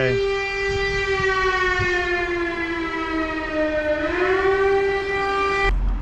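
Air raid siren sounding the alert, loud: one steady tone that slowly sinks in pitch, swells back up about four seconds in, and cuts off abruptly just before the end.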